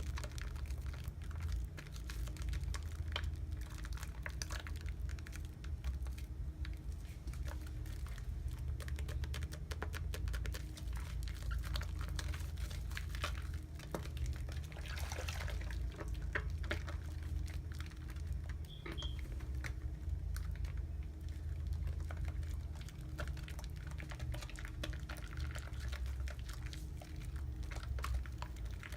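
Wet soap lather being worked by hand: dense small squishing clicks and crackles of suds, over a steady low hum.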